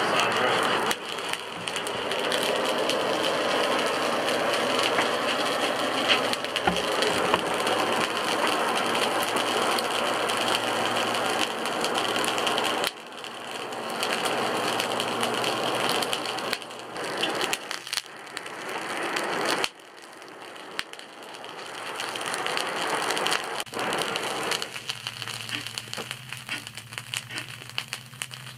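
Charcoal forge fire under a bellows blast, hissing and crackling as the coals burn hot and throw sparks. The blast comes in long swells that cut off suddenly, then settles to a quieter crackle near the end.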